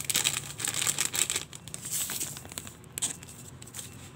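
Rapid crinkling and crackling of a plastic seasoning packet as MSG is shaken out over raw milkfish slices, thinning out toward the end.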